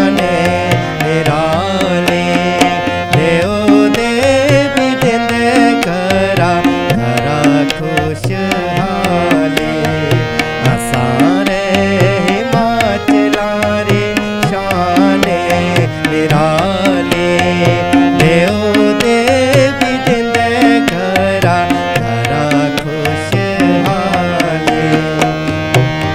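Harmonium playing a melody over a steady tabla accompaniment: an instrumental interlude in a Himachali folk song.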